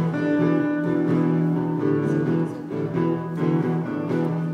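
Live acoustic folk music playing an instrumental passage between sung verses, with guitar accompaniment and no singing.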